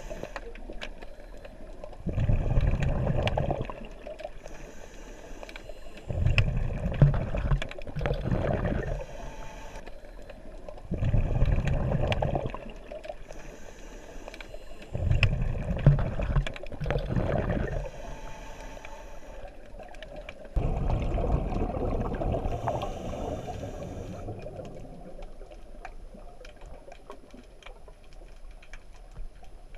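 Scuba diver breathing through a regulator underwater. About every four to five seconds comes a loud rush of exhaled bubbles, with a quieter hiss between them on the in-breath.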